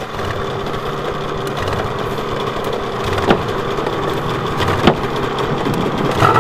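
Snowmobile engine idling steadily, with two sharp knocks about three and five seconds in.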